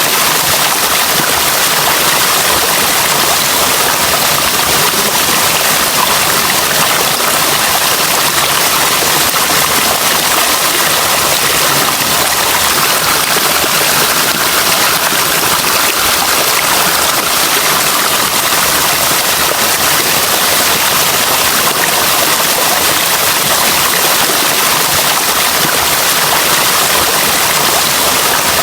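Running water: a loud, steady, unbroken rush like a stream or cascade.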